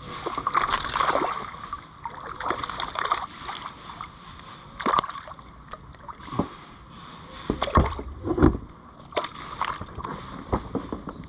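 Hooked peacock bass splashing and thrashing at the surface beside a kayak, in short repeated bursts, with two heavy knocks about eight seconds in.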